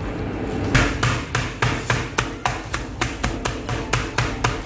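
Metal meat tenderizer mallet pounding chicken strips flat through a plastic sheet on a plastic cutting board: quick, even blows about four a second, starting about a second in.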